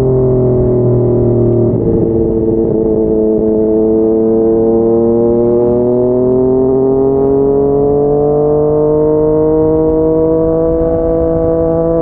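Yamaha MT-09's inline three-cylinder engine through a Yoshimura R55 slip-on exhaust, under way on the road. There is a short step up in pitch about two seconds in, then the engine note climbs slowly and steadily as the bike accelerates in one gear.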